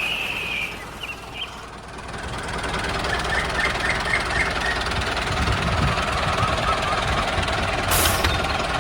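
Miniature DIY farm machine running steadily with an engine-like sound, dipping briefly about a second in.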